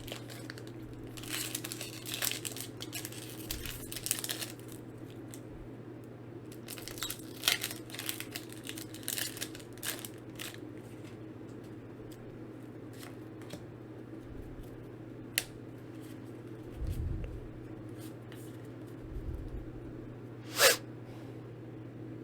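Foil Pokémon booster pack wrapper being torn open and crinkled, in two bouts of rustling over the first ten seconds, followed by scattered clicks and a sharp snap near the end as the cards are handled.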